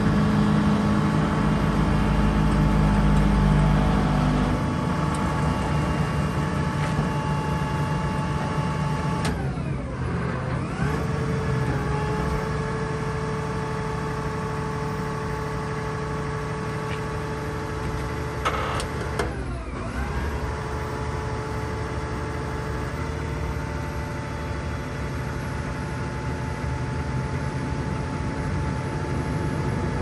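Vögele Super 1800-3i asphalt paver's diesel engine running steadily with a steady whine over it. The deep rumble drops about four seconds in. The engine speed dips and comes back up twice, about a third and two-thirds of the way in, with a short clunk just before the second dip.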